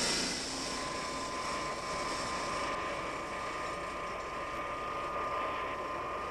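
Jet aircraft engine running: a steady rushing noise with a high, steady whine that comes in about half a second in.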